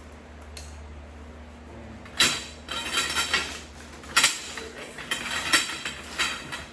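Metal grow-tent frame poles clinking and clanking against each other as they are handled, a string of ringing knocks starting about two seconds in.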